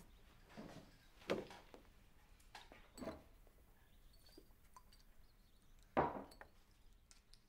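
Tableware at a meal: a handful of separate clinks and knocks of cutlery, plates or glasses, the loudest about six seconds in.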